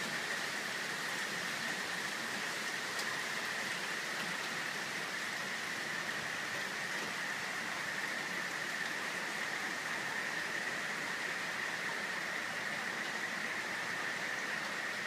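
Steady rain falling, an even hiss with no break, with a steady high-pitched hum running through it.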